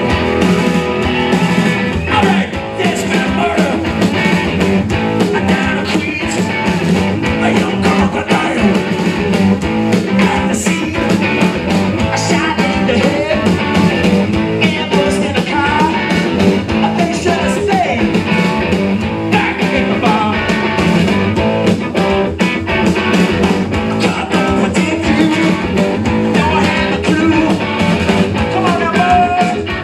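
Live rock-and-roll band playing loud: electric guitars driven over a steady drum beat.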